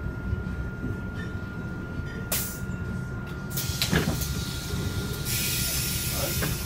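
Solaris Urbino 15 city bus idling at a stop, with a low engine hum and a thin steady whine. Compressed air hisses briefly about two seconds in, then again at length from about three and a half seconds, with a knock around four seconds; the loudest hiss comes near the end.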